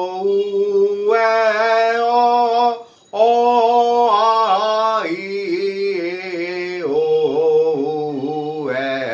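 A man singing Bengali vowel sounds (অ, আ, ই, এ, ও, উ) as a vocal warm-up exercise, holding each vowel as a note and stepping up and down a simple tune. There is a short pause for breath about three seconds in.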